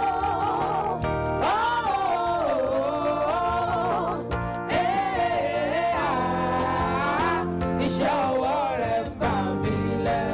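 A female gospel singer singing a Yoruba worship song with band accompaniment, drawing out long held notes that slide up and down in pitch over a steady backing.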